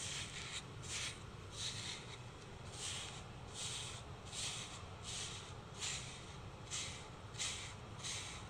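Brushing strokes, each a short soft bristly swish, repeated evenly at a little under two a second.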